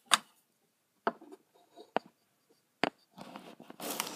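Handling noise as the recording device is gripped and moved by hand: a few sharp knocks about a second apart, then rubbing and rustling right on the microphone near the end.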